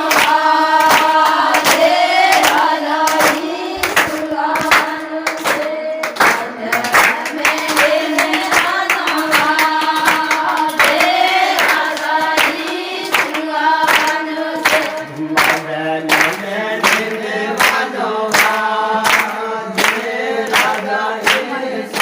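A group of voices singing a song together with steady hand claps on the beat; a lower voice joins the singing about two-thirds of the way through.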